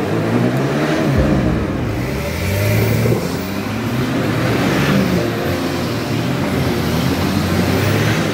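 Off-road 4x4 vehicle's engine revving, its pitch rising and falling again and again.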